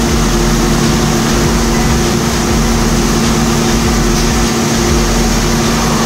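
CNC door machining center running a panel-shaping cycle on an oak panel with a panel cutter and hogger: a steady loud machine hum with a low drone, holding even throughout.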